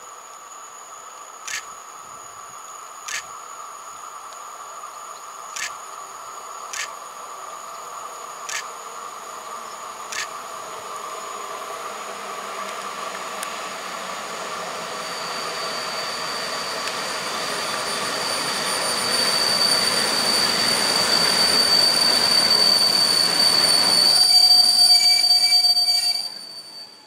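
EP07 electric locomotive and its passenger coaches rolling into the station. The rolling noise grows louder as the train approaches, and a high steady wheel-and-brake squeal sets in about halfway and builds as the train slows for its stop. The sound cuts off suddenly near the end.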